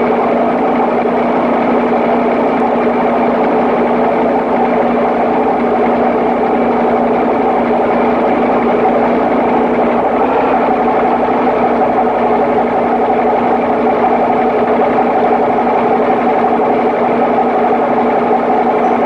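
Papp noble-gas engine running steadily under test, a loud even mechanical hum that holds one pitch throughout.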